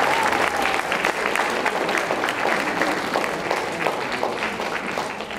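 Crowd applauding, many hands clapping together, the applause gradually thinning and fading toward the end.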